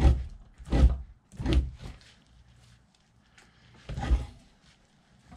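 Fleshing knife scraping fat from a raccoon hide on a fleshing beam. There are three rough strokes in quick succession, then a pause and one more stroke about four seconds in.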